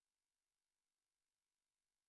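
Near silence: a silent soundtrack with only faint electronic hiss.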